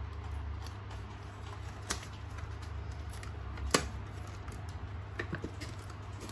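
Handling noise from a plastic robot vacuum and its plastic wrap as it is turned over and set into its cardboard box. A few sharp clicks and knocks come over a steady low hum: one about two seconds in, the loudest a little past halfway, and a cluster of softer ones near the end.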